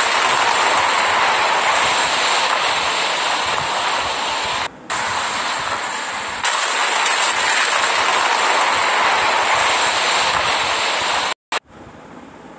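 Steady loud rushing noise with no distinct tones. It dips briefly about five seconds in, and near the end it cuts out for a moment and comes back much quieter.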